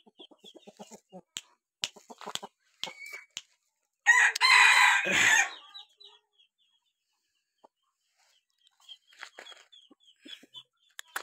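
A fighting rooster crows once, about four seconds in, a single crow lasting about a second and a half; faint soft clucks and small clicks come before and after it.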